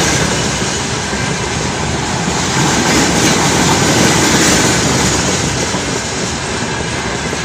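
Open-top gondola freight wagons of a long freight train rolling past close by, their steel wheels running on the rails with a steady loud rumble; the noise eases a little toward the end as the last wagons pass.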